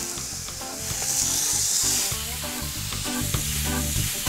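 Marinated swordfish steaks sizzling on a hot gas grill grate as they are turned with metal tongs, with a few light clicks of the tongs.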